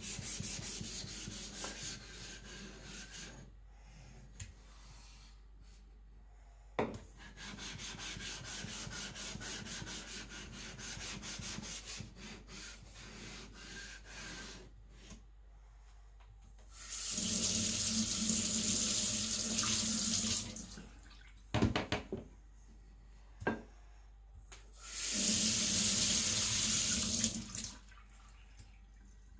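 Tap water running into a sink twice, about three seconds each time, the loudest sound here. Before that come two stretches of quick, even scraping strokes, with a few short knocks between the runs of water.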